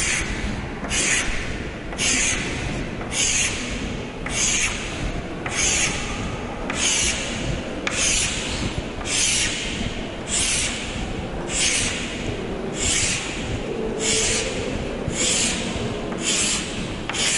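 Chalk scraping across a chalkboard in a steady series of hatching strokes, about one stroke a second, each a short rasping scratch.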